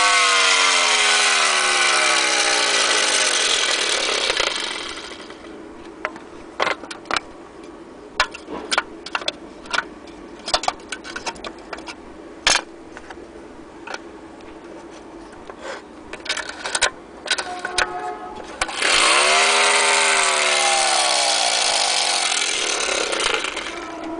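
Clockwork spring motor of a 1930s Hornby Racer III tinplate speed boat running down with a loud whir, its pitch falling until it stops about four seconds in. Then scattered clicks and knocks of the tin hull being handled. About 19 seconds in the motor whirs loudly again, slowing and fading near the end.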